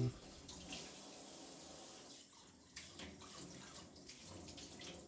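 Faint water trickling from a kitchen tap into the sink, a soft even hiss with a few small drips and ticks.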